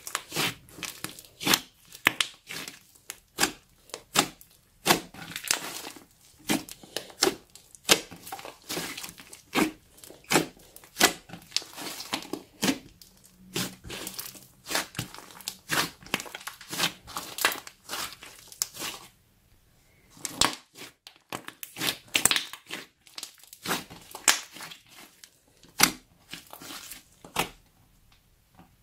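Green slime being squeezed, stretched and pressed by hand: an irregular run of wet squelches, pops and crackles as air pockets in it burst, with a short lull about two-thirds of the way through.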